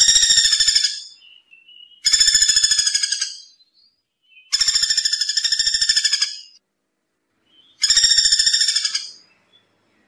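Common flameback woodpecker calling: a rapid, high rattling trill given four times, each call lasting a second or so, with short pauses between.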